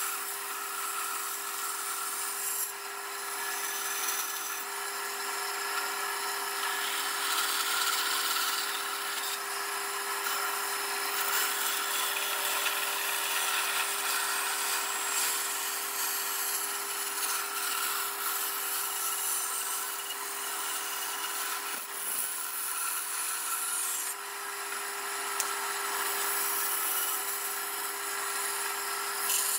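Bandsaw running with a steady hum while its blade cuts through thick blocks of wood; the cutting noise rises and falls as the wood is fed into the blade.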